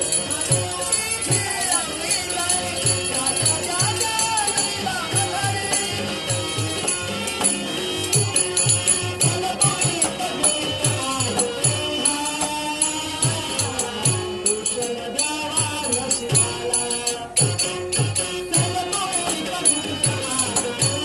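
A man singing a Marathi song over a steady drum beat and jingling metal percussion.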